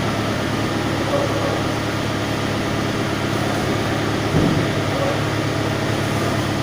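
An engine idling steadily, with a short thump about four seconds in.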